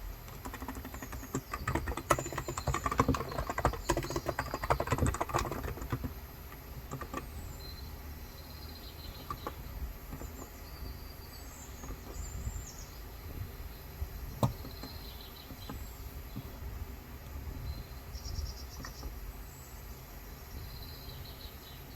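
Typing on a Cox Endeavor electro-capacitive keyboard with 35 g keys: a quick run of keystrokes in the first few seconds, then a single keystroke about halfway through. Birds chirp on and off in the background.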